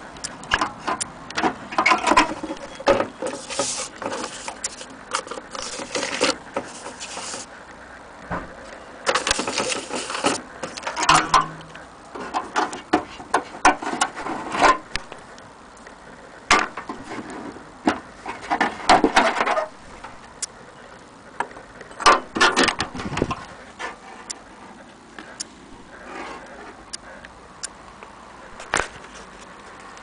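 Handling noises from a vintage portable typebar typewriter: irregular metal clicks and knocks with bursts of rustling and scraping.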